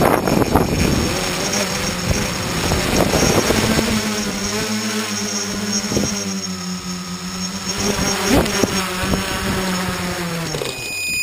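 Small multirotor's electric motors and propellers buzzing steadily, heard from the camera mounted on the tricopter, with wind rushing over the microphone in the first few seconds. Near the end the buzz drops in pitch and cuts off as the craft settles into the grass.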